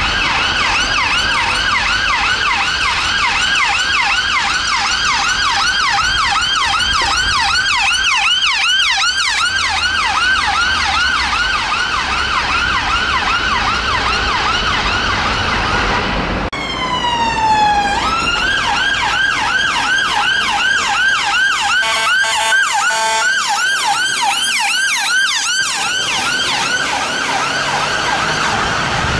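UK emergency vehicle sirens on a fast yelp, a rapid rising-and-falling sweep repeating several times a second. About halfway through the siren slides down slowly and climbs back up into the yelp, and a little later a few short steady tones sound over it.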